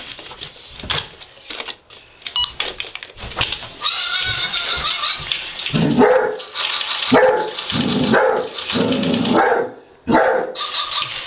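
Basset hound barking and baying over and over, in loud, repeated barks that come thickest through the middle, with a short lull near the end before they start again.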